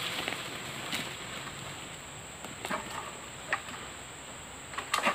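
Steady high-pitched buzz of insects, with a few sharp clicks and knocks scattered through it.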